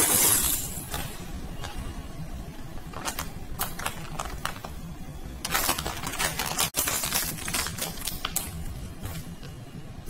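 Dried potpourri pieces rustling and clicking as they are shaken from a crinkling plastic bag into a perforated plastic basket. Irregular crisp clicks and short rushes of tumbling pieces, the loudest rush about halfway through.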